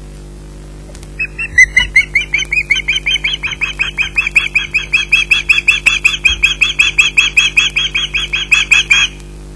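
Osprey calling at the nest: a long, fast series of high, piercing chirps, about seven a second, that starts about a second in and stops abruptly near the end.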